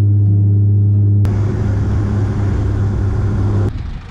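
Turboprop airliner's propellers droning steadily in the cabin beside the propeller, a low even hum. About a second in, a rushing hiss joins the drone. The drone stops shortly before the end.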